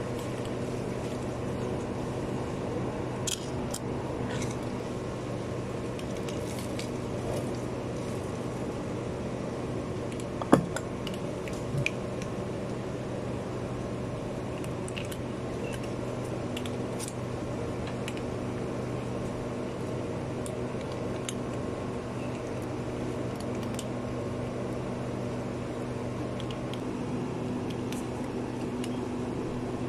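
Cats crunching dry kibble: small, irregular clicks of chewing over a steady mechanical hum, with one sharp knock about ten seconds in.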